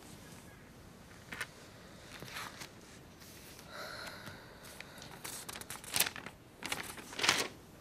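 Paper rustling as a folded sheet is drawn out of an exercise book and unfolded, in a few short crinkles, the sharpest two near the end.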